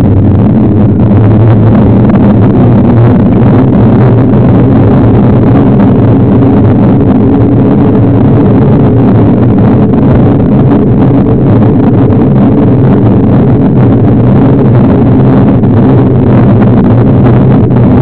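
Loud, steady low drone of wind and road rumble on the microphone of a camera riding on a moving mountain bike.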